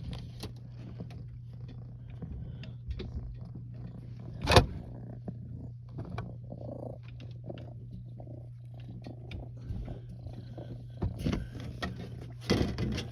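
Domestic cat purring steadily, close to the microphone. A sharp knock about four and a half seconds in, and a few softer knocks and rustles near the end.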